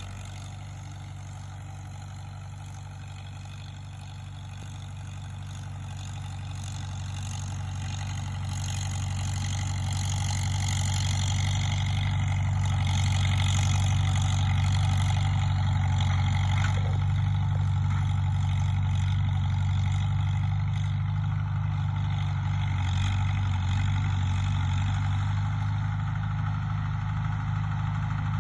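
1947 Farmall M's four-cylinder engine running steadily as the tractor pulls a disc harrow through the field. Its low, even drone grows louder over the first several seconds and then holds steady.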